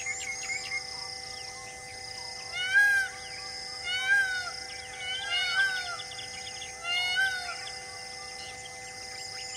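A wild bird giving four loud, arched calls a second or so apart, each rising and then falling in pitch, over a steady held drone and a run of small high chirps.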